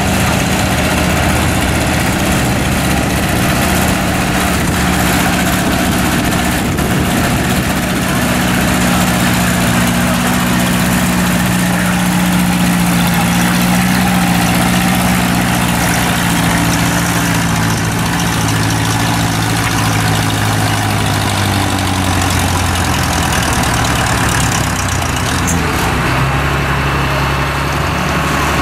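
Antique Ford tractor engine running hard under load as it pulls a weight-transfer sled. The engine note sags lower in the second half as it lugs down, and drops back near the end as the pull stops.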